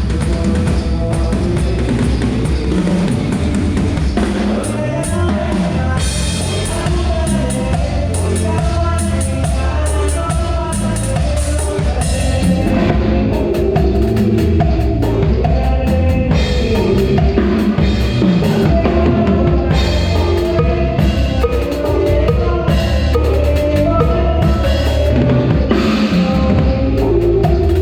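Live band playing a song: a drum kit with kick drum and snare keeps a steady beat under bass and other pitched instruments.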